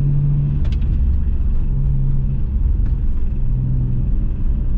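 Turbocharged Subaru EZ30 flat-six idling steadily during warm-up. The owner says this motor has timing chain rattle and a knock that can just be heard.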